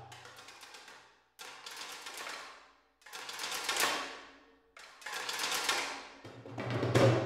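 Sampled metal djembe ensemble from Tonehammer's Anti-Drum Vol 1 library, played in short rolls of quick hits that each swell in loudness and then die away, about four times.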